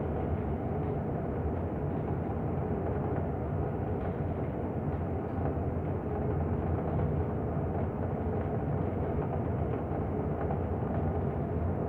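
Steady engine and road noise of a moving bus, heard from inside the cabin: an even, low rumble with no sudden events.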